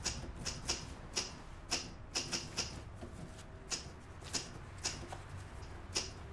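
Manual typewriter keys striking in an irregular, unhurried rhythm, about two sharp clacks a second.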